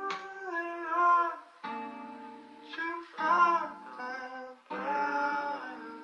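Music: the outro of a slow, sombre song, with wordless vocal phrases that bend in pitch over plucked guitar, mixed as 8D audio.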